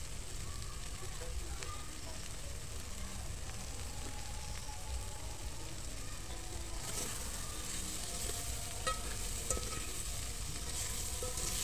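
Omena, small dried lake fish, sizzling with tomatoes and spices in a metal pot while a spoon stirs them. The sizzle gets louder about seven seconds in, and a couple of sharp clicks of the spoon against the pot follow soon after.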